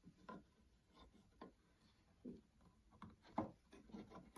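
Faint, scattered small taps and clicks of thin wooden strips being press-fitted inside a small mahogany box, wood knocking lightly on wood during a dry fit.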